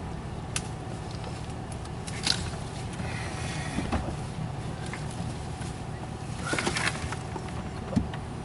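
Dodge Ram 1500 pickup crawling slowly over a rough trail, a steady low rumble heard inside the cab with the window open, with scattered clicks and brief scrapes of branches and twigs brushing against the truck.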